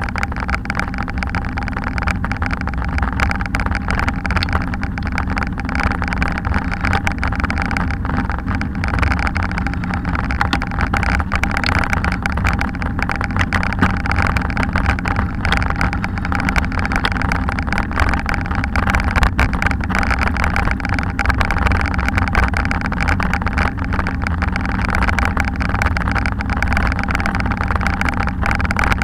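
Steady wind rush on an action camera's microphone, mixed with the rumble of a bicycle rolling over brick paving.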